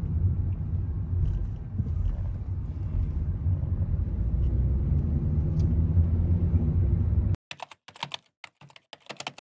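Steady low rumble of road and engine noise inside a moving Hyundai taxi, which cuts off abruptly about seven seconds in. A quick run of typewriter-style key clicks follows, as the title text is typed out.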